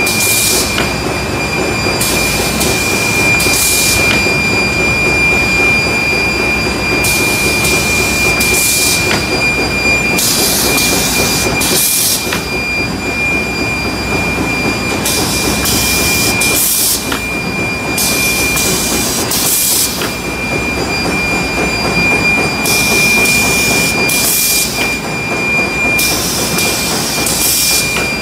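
Diaper production and stacking machinery running steadily, with a constant high whine over the mechanical clatter. Bursts of hiss about a second long come every few seconds.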